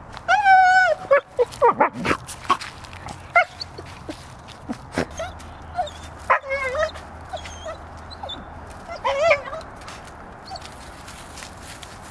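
Shiba Inu dog whining and yipping in annoyed protest: a loud high-pitched cry near the start, a flurry of short yips, then two more drawn-out whines later on. Dry leaves rustle and crunch between the cries.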